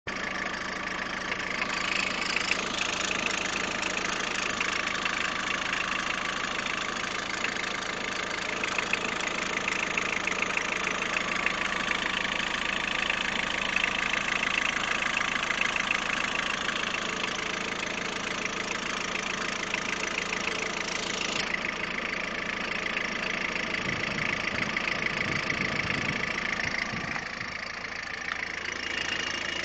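Peugeot 106 1.5 diesel engine idling steadily with an even, fine-grained clatter. The sound shifts about two-thirds of the way through, when the high hiss fades, and a few low rumbles follow.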